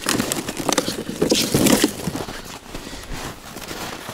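Hands rummaging through gear in a plastic sled: rustling, crackling and clattering, loudest in the first two seconds. Quieter crunching steps in snow follow.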